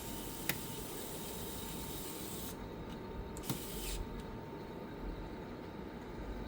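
A spraying hiss that runs for about two and a half seconds, then a second, shorter hiss about a second later, each with a sharp click near its start, over a steady low hum.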